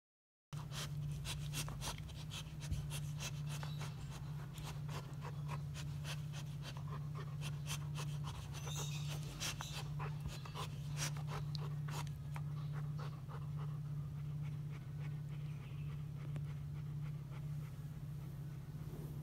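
Labrador retriever mouthing and chewing a plush toy: a busy run of wet smacks and teeth clicks, with the dog panting, over a steady low hum.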